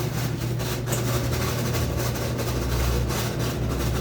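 BWC11A washing machine in its spin cycle, running with a steady low hum; a deeper drone joins about two and a half seconds in. The owner hears it as an abnormal noise from a part that may be failing.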